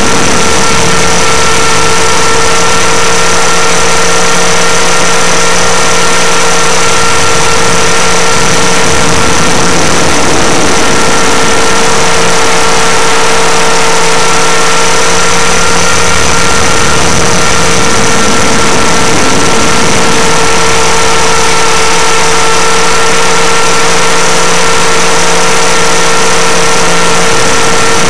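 Align T-REX 500 ESP electric RC helicopter in flight, heard from a camera mounted on it: a loud, steady whine from the electric motor and gears over the rush of the rotor blades. A lower hum drops out and returns a few times.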